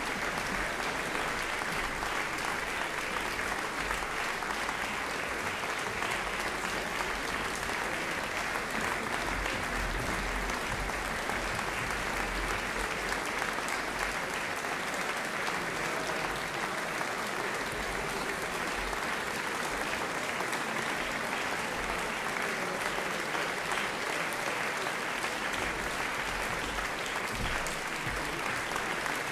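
Concert audience applauding steadily, a dense, even clapping.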